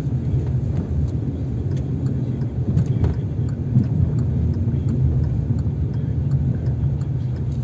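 Steady low rumble of a car driving on a city road, heard from inside the cabin: engine and tyre noise, with a few faint scattered ticks.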